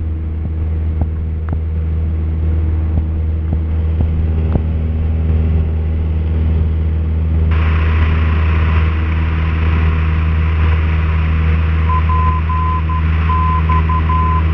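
Cessna 172P's four-cylinder Lycoming engine droning steadily in the cockpit during the climb. About seven seconds in a radio hiss switches on in the headset, and from about twelve seconds a steady tone beeps in dots and dashes: the Morse-code identifier of a tuned VOR station.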